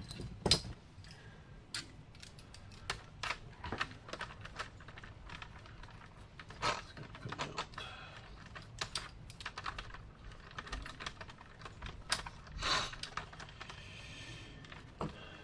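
Irregular light clicks and taps of hand tools and parts being worked on an RC truck's wheel hub, with a few louder knocks among them, while a stuck wheel part is being worked loose.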